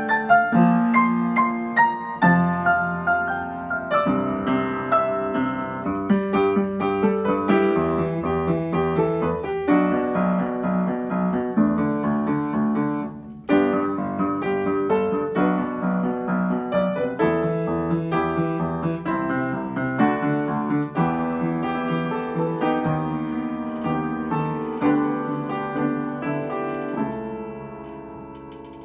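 Upright piano played solo, a continuous run of chords and melody that breaks off for a moment about halfway through and grows quieter near the end.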